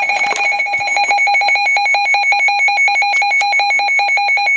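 A NOAA weather alert radio's built-in alarm, sounding for an incoming Special Marine Warning: a loud electronic alarm beeping rapidly, about eight pulses a second, on two high pitches at once. It stops abruptly at the very end.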